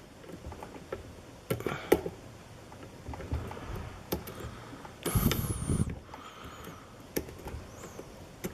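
Small clicks and scrapes of lock picks working the pins of a Sargent pin-tumbler lock cylinder, with a louder scraping handling noise about five seconds in.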